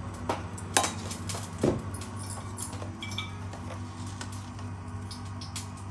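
A few light clicks and a soft knock of a plastic salt container being lifted off a steel plate and handled, over a steady low hum.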